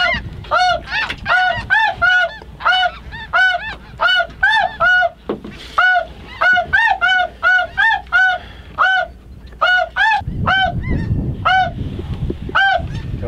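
Geese honking: a long run of single, evenly pitched honks, about two to three a second, each a short rise-and-fall note. A low rumble joins in for the last few seconds.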